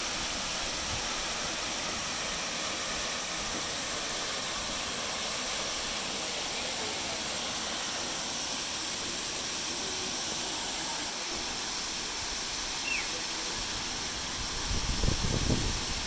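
Steady hissing rush of water, even and unbroken. Low rumbling comes in near the end.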